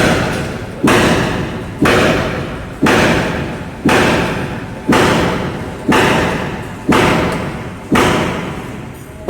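Heavy thuds repeating steadily about once a second, nine in all, each striking sharply and then dying away slowly.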